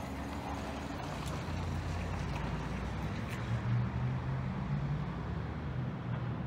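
An engine running with a steady low hum that swells a little about halfway through.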